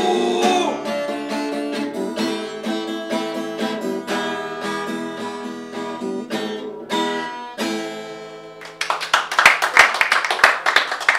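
Acoustic guitar playing the closing bars of a song, ending on a final strummed chord that rings and fades. About nine seconds in, a small group of people starts clapping.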